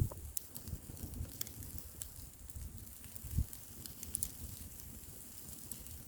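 Bonfire crackling with scattered sharp pops, under a low rumble of wind buffeting the microphone that swells briefly at the start and again about three and a half seconds in.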